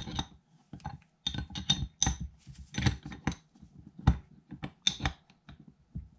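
A metal wrench clinking against the retaining nut and fluid housing of a spray-foam pour gun as the nut is tightened down. The clinks are sharp and irregular, about a dozen, some with a short metallic ring.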